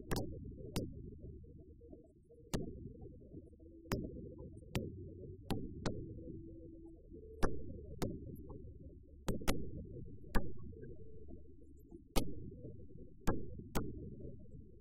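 Aerial firework shells bursting: about fifteen sharp bangs at irregular intervals, each trailing off into a low rumbling echo.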